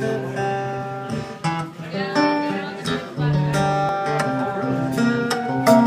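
Live instrumental music: acoustic guitar strumming chords.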